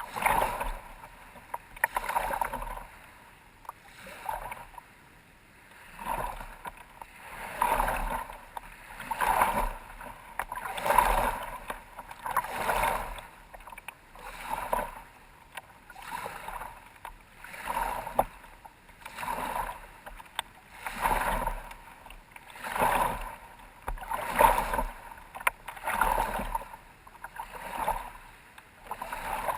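Kayak paddle strokes in water, a swish about every second and a half to two seconds in a steady rhythm.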